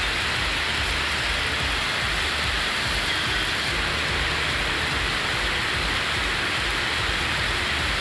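Heavy rain falling steadily on a road, an even wash of rain hiss.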